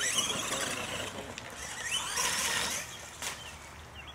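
Radio-controlled monster trucks racing through mud, their motors revving in two loud surges, one at the start and one about two seconds in. A sharp knock comes about three seconds in.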